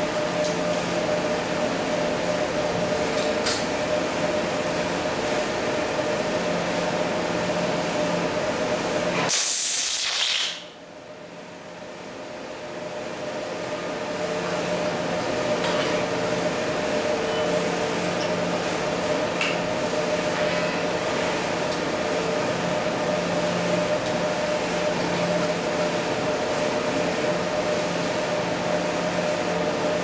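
Steady machine hum with a constant tone, typical of workshop equipment running. About nine seconds in, a sharp hiss lasting about a second cuts across it; the sound then drops away and builds back slowly over several seconds.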